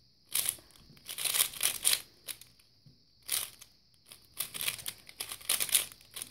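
A 3x3 speed cube being turned fast through the V-perm algorithm: quick runs of plastic clicking and clacking layer turns, several bursts with short pauses between them.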